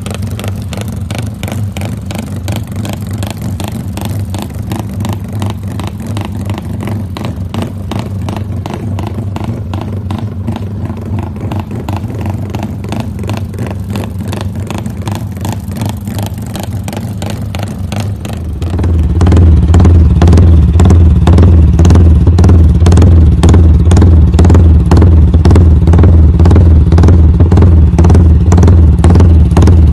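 Yamaha 150cc single-cylinder motorcycle engine on an aftermarket exhaust, idling with a fast, even pulsing 'rumble idle' from retarded ignition timing. About two thirds of the way through it suddenly becomes much louder and deeper, then holds steady.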